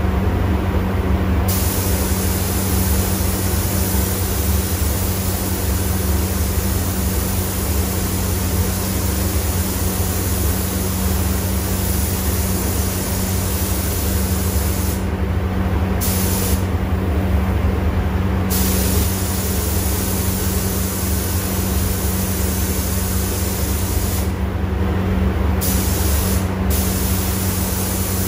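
Gravity-feed paint spray gun hissing as compressed air sprays a heavy coat of clear coat in long passes, the hiss cutting out for a second or two a few times as the trigger is let off between passes. A steady low hum runs underneath.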